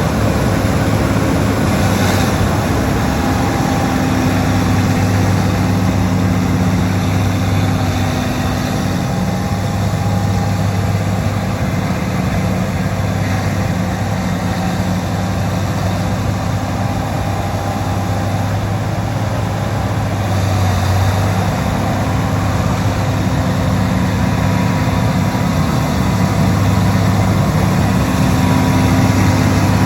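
Bulldozer's diesel engine running steadily with a deep drone, easing off slightly in the middle and coming back up near the end.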